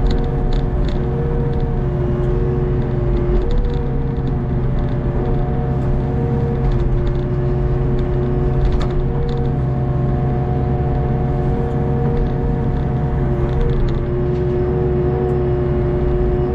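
Hitachi ZX48U mini excavator's diesel engine running steadily under load, heard from the operator's cab, with the hydraulic whine stepping up and down in pitch as the boom, arm and bucket move.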